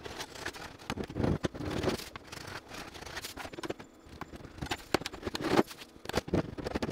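Metal painter's multi-tool knocking and scraping on a laminate countertop at a seam: a run of irregular clicks and taps mixed with short scrapes.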